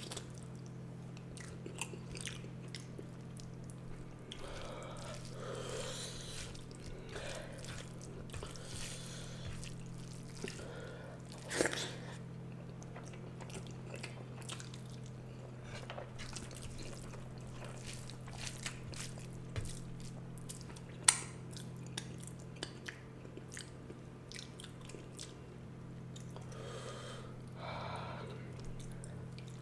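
Close-miked chewing and eating of rice and curry: wet mouth sounds, smacking and small clicks, with two sharp clicks about twelve and twenty-one seconds in. A steady low hum runs underneath.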